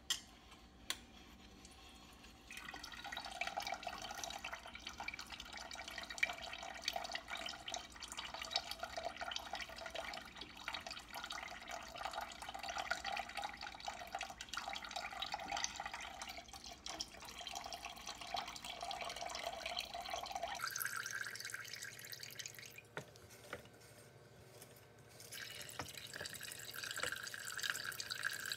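Elderberry juice pouring in a thin stream from a spout and splashing into a partly filled stainless steel pot. The splashing starts a couple of seconds in, eases off and changes tone about three-quarters through, then picks up again.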